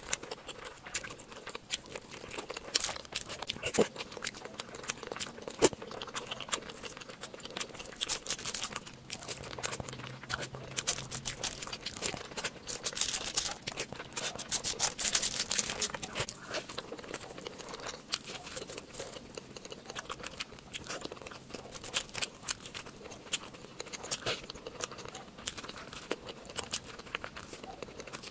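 Close-miked ASMR eating of spicy meat: chewing, with many sharp, wet mouth clicks and crackles, busiest about halfway through.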